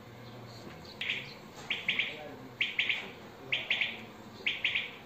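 A bird calling: short, sharp chirps in quick clusters of two or three, repeated about once a second after starting about a second in.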